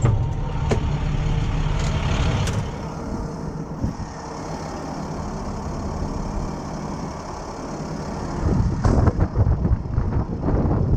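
Medium-duty tow truck's engine running, heard from inside the cab, with a few sharp clicks in the first few seconds. Near the end, wind rumbles on the microphone.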